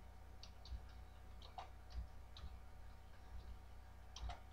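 Typing on a computer keyboard: faint, irregular key clicks spread through, with a few quicker ones near the end.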